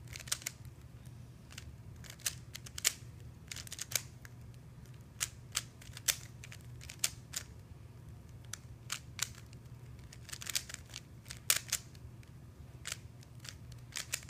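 Plastic speed cube being turned by hand: irregular clicks and clacks of its layers snapping round, a few every second, over a low steady hum.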